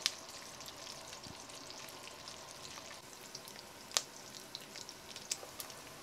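Sliced paprika sausage frying in butter and olive oil in a cast iron pot: a faint steady sizzle with scattered small crackles, and one louder crackle about four seconds in.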